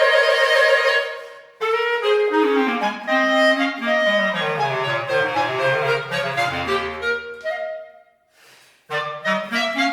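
Clarinet music: a held high note breaks off, then a long run of notes steps down into the low register. After a short pause about eight seconds in, a quick flurry of notes follows.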